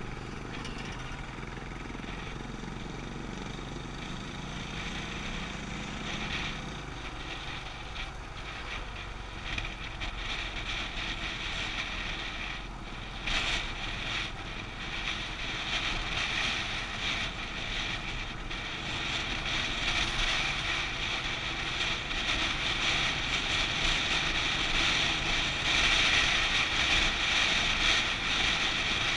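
Motorcycle running along a road at speed, its engine tone plain for the first several seconds, with wind rushing over the microphone that grows louder toward the end.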